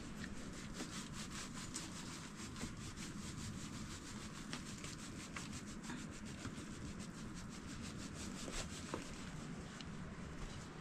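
A steady run of quick, scratchy rubbing strokes as a fine white powder is shaken from a flat metal tray onto an earth floor.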